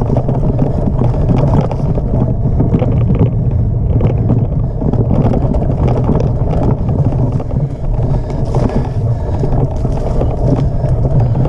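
Wind buffeting a mountain bike's action camera microphone as a steady low rumble, with the knobby tyres rolling over a dirt singletrack and the bike rattling over bumps.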